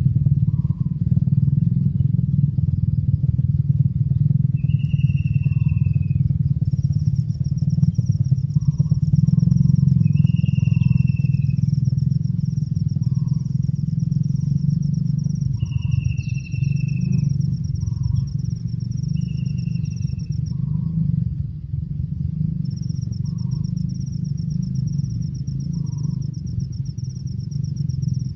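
A steady low rumble, with a bird's short descending whistle four times over it, a continuous high-pitched trill that breaks off for a couple of seconds, and short soft notes repeating about every second and a half.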